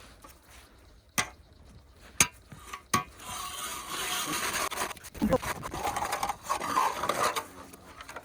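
A few sharp knocks, then from about three seconds in an ice auger boring into lake ice: a continuous grinding scrape as the blades shave through the ice.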